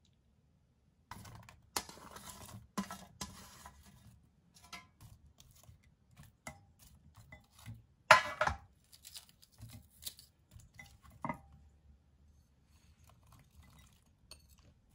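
Chunks of cut onion dropped by hand into a pot of mackerel pieces: irregular rustling with knocks and clinks against the pot, starting about a second in, with one sharp knock about eight seconds in the loudest. Near the end, faint taps as sliced green chilies are tipped in from a plate.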